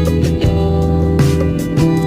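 Instrumental background music with held notes and drum hits.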